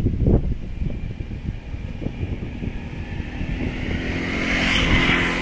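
A motor vehicle passing by. Its engine and road noise grow steadily louder through the second half and peak near the end.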